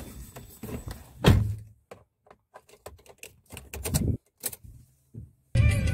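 A string of clicks and knocks inside a car, with one loud thump about a second in, as the phone is handled near the dashboard. Background music starts abruptly near the end.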